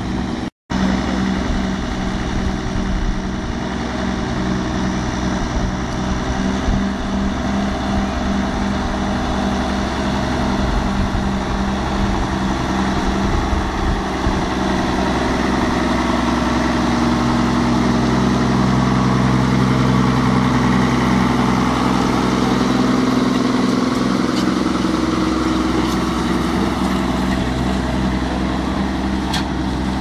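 Schlüter Super 1500 TVL tractor's six-cylinder diesel engine running under load while pulling a plough, a steady pulsing drone that swells louder about two-thirds of the way through.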